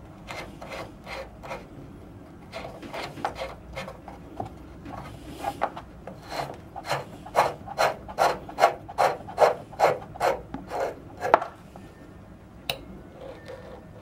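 Plastic water heater drain valve being twisted back and forth by hand, a run of short plastic scraping strokes, about two to three a second, that get louder about halfway through and stop with a click a couple of seconds before the end. The valve is being worked because the heater won't drain.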